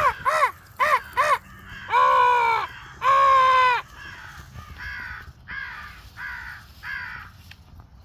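Crows cawing: four short caws, then two long, loud drawn-out caws, then a string of fainter caws about two a second.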